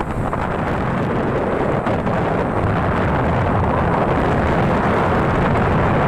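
Strong wind buffeting the microphone: a loud, steady, dense low rumble.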